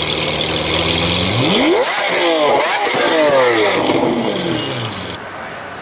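Lamborghini Aventador's V12 engine idling, then revved several times in quick succession, each rev rising sharply and falling back. About five seconds in the engine sound cuts off, leaving a quieter background.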